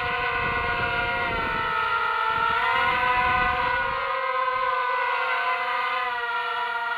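ZMR250-based FPV racing quadcopter's motors and propellers whining as it flies overhead, the pitch sagging about two seconds in and then rising again with the throttle. A low rumbling noise underneath drops away about four seconds in.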